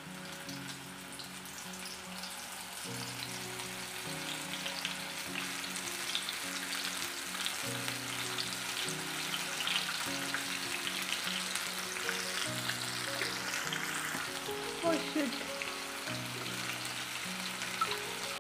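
Batter-coated mushroom pakodas deep-frying in hot oil: a dense crackling sizzle that grows louder over the first few seconds as more pieces are dropped in.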